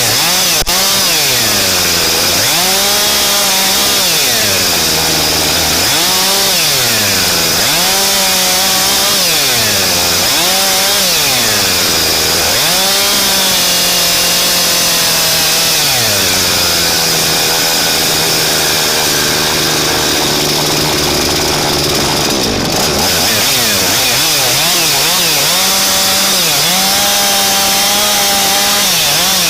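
Husqvarna chainsaw heard from a camera mounted on the saw itself, running hard as it cuts wood. The engine pitch sags as the chain bites in and climbs back again, over and over, with a longer steady stretch under load in the middle and quicker, shorter dips near the end.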